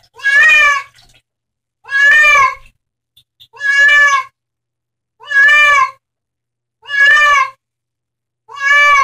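A cat meowing six times, loud calls under a second each, about every second and a half, each rising then falling slightly in pitch.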